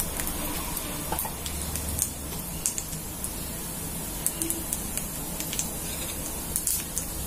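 Whole spices and cumin seeds sizzling in hot oil in a kadai, with scattered crackles and pops through it.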